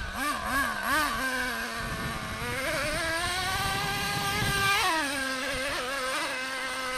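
Nitro RC truck's small two-stroke glow engine at high revs under load as it climbs a steep dirt hill. A few quick throttle blips, then a long pull with the pitch rising to a brief peak about five seconds in, after which it drops a little and holds steady.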